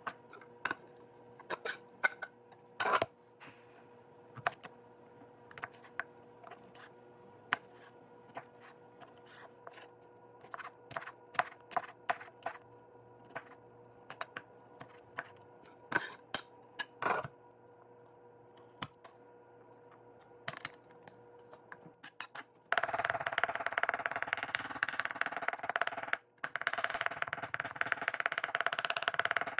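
Kitchen knife chopping on a wooden cutting board: scattered single cuts at first, then about three-quarters of the way in a fast, continuous rat-a-tat of mincing, with a brief pause in the middle of it.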